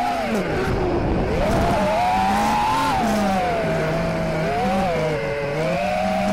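Armattan Rooster 5-inch FPV quadcopter's brushless motors whining as heard from its onboard camera, the pitch rising and falling with throttle: it dips sharply about a second in, then climbs and wavers. Under the whine there is a rushing noise of wind and airflow.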